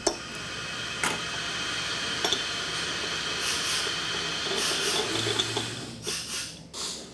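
Metal parts clicking as the yoke and yoke screw are fitted onto a chrome-plated brass scuba regulator first stage: a sharp click at the start and another about a second in, over a steady hiss, with a few short rustles near the end.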